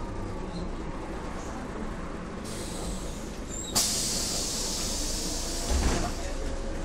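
A Mercedes-Benz OM447hA diesel engine in a Jelcz M122MB city bus runs with a low rumble. About four seconds in, a loud hiss of compressed air from the bus's pneumatic system starts suddenly and lasts about two seconds, with a low thump near its end.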